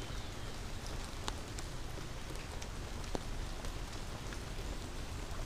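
Steady rain falling, an even hiss with a few single drops ticking close by.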